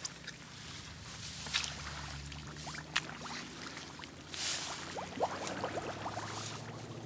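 Bare feet and a knobby mountain-bike tyre squelching and splashing through shallow mud and puddle water, with small drips and sloshes and a louder slosh about four and a half seconds in, over a steady low hum.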